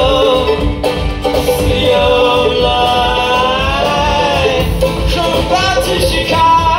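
Live band playing a folk-pop song: plucked strings and a steady low end under a gliding, wavering melody line, with no lyrics in this stretch.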